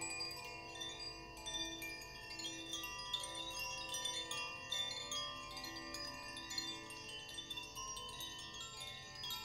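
Hand-held chimes shaken in a continuous tinkling, with many sustained ringing tones beneath.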